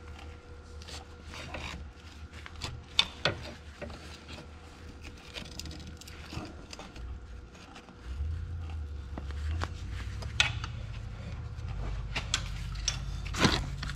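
A large wrench clicking and scraping on the metal canister of an Oliver 1855 tractor's spin-on transmission lube filter as the filter is broken loose and unscrewed, with scattered sharp metal clicks. A low rumble comes in about eight seconds in.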